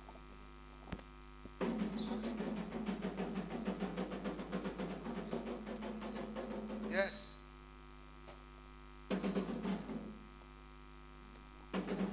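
Steady low electrical mains hum. Over it, a stretch of faint, indistinct noise runs from about a second and a half in until about seven seconds, and comes back briefly around nine seconds.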